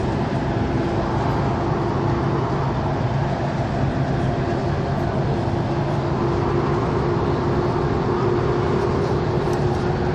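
Steady road noise of a car driving in traffic, heard from inside the cabin: tyre and engine noise with a constant low hum.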